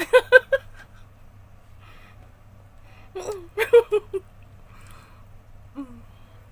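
A woman's short, pitched vocal sounds without words: a quick run of four pulses at the start and another run of five or six about three seconds in, then a brief falling hum near the end.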